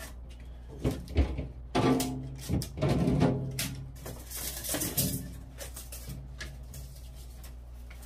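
Plastic clicks, knocks and squeaky scraping as the fixing supports are pried off inside a refrigerator compartment. It is loudest between about two and three and a half seconds in, over a steady low hum.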